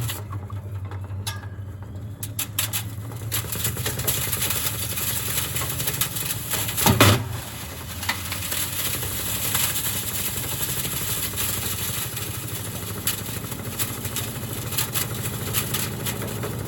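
Damaged Gorenje washing machine running: a steady motor hum with constant rattling and clicking, and one loud knock about seven seconds in.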